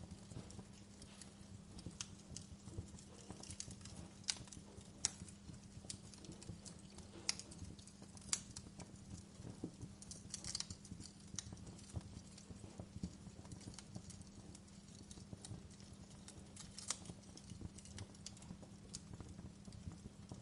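Wood fire burning in a fireplace, the logs crackling with many irregular sharp pops over a steady low rumble.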